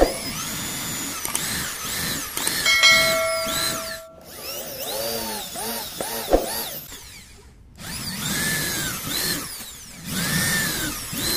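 Electric hand drill boring holes into a dark hardwood block, in three bouts with short pauses between them. The pitch dips and recovers as the bit bites. The holes clear waste from the blade mortise of a wooden hand plane.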